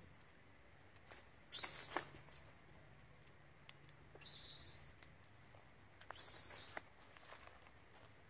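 Macaque giving three short, shrill squeaks, each under a second and spread a couple of seconds apart.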